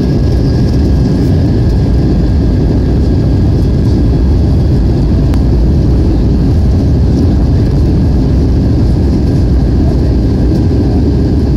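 Jet airliner cabin noise heard from a window seat beside the wing-mounted turbofan engine during the descent to land: a loud, steady low rumble of engine and airflow with a faint, even hum above it.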